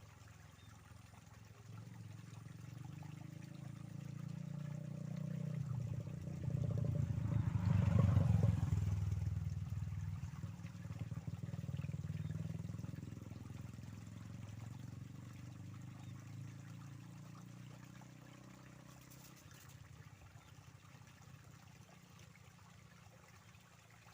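A motor vehicle passing by: its low engine sound swells, peaks about eight seconds in, then slowly fades away. Flowing water trickles faintly underneath.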